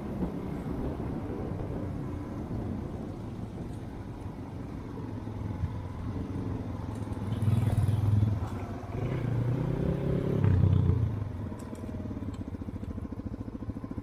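Dirt bike engine running steadily, with two louder swells of throttle a little past the middle.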